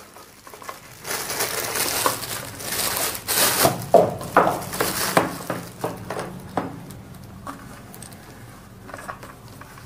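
Clear plastic packaging bag crinkling and rustling as a power adapter is pulled out of it. After that comes quieter handling of the adapter and its cable, with a few faint clicks.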